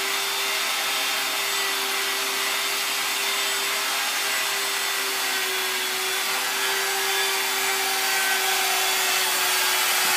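Electric rotary tool with a long bit cutting into a block of ice turning on an ice lathe: a steady motor whine over a constant hiss of shaved ice spraying off, growing slightly louder over the last few seconds.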